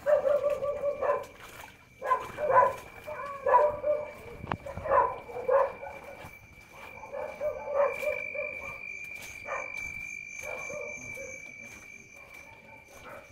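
A dog barking repeatedly, loud at first and fading toward the end, over a steady high-pitched whine.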